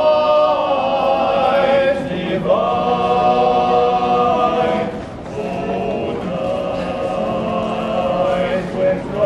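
Men's choir singing in harmony, holding long chords, with breaks between phrases about two and a half seconds in and again around five seconds.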